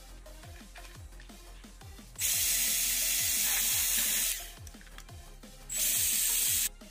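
Cordless drill with a step drill bit boring through the plastic lid of an electrical junction box, in two runs: about two seconds from a couple of seconds in, then a second shorter run near the end. Background music with a steady beat plays throughout.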